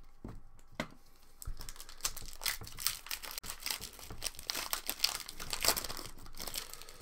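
Foil wrapper of an Artifacts hockey card pack being torn open and crinkled by hand: a dense crackling that thickens after the first second or so.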